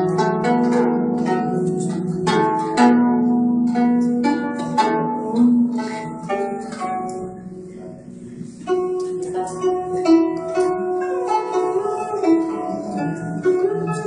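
A guzheng (Chinese zither) played solo: plucked notes ringing and dying away over lower held notes, some of which waver in pitch. The playing softens a little past the middle, then louder plucked notes come back in.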